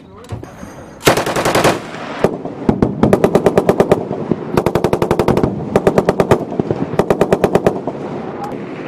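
M2 .50-calibre heavy machine gun firing about six short bursts of rapid shots, each under a second or so long, with a rumble lingering after the last burst.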